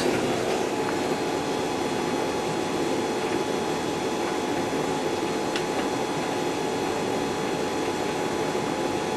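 Hotpoint Aquarius VTD00 tumble dryer running just after starting a load of towels: a steady rush of air from the fan with an even motor hum.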